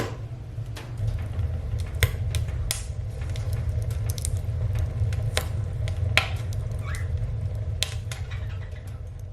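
An engine idling with a steady low rumble, while wood knocks and clatters in sharp, irregular clicks and thuds.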